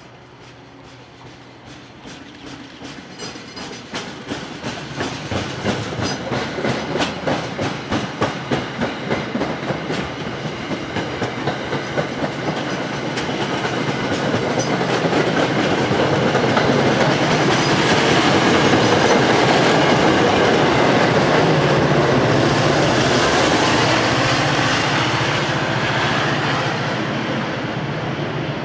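MBTA commuter rail train passing close by: a rhythmic clickety-clack of wheels over rail joints grows louder over the first dozen seconds. It then merges into a loud steady rush of the coaches going past, peaking about two thirds of the way through and easing near the end.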